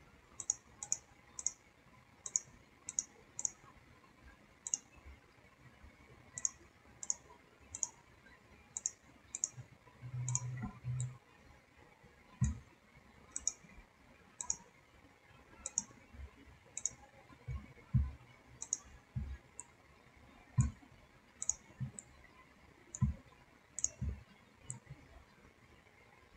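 Computer mouse clicking at an irregular pace, single clicks and quick pairs, with a few soft low thumps among them.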